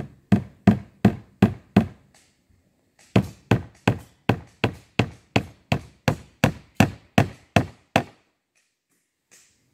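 Hammer blows on wood: a quick run of five strikes, then after a short pause a steady run of about fourteen more, nearly three a second.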